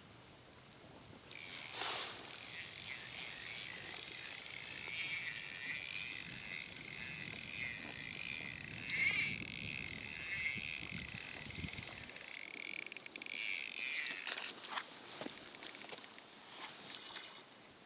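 Fishing reel mechanism running with a fast, ratchety whir for about thirteen seconds, then stopping with a few scattered clicks.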